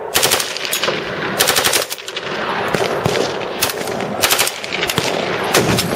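Short bursts of full-automatic fire from M16/M4-type carbines, about six bursts roughly a second apart, with other gunfire going on between them.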